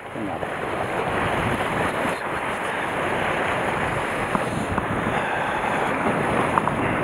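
Sea swell washing and splashing over the rocks at the water's edge, a steady rush of surf that holds level throughout, with wind on the microphone.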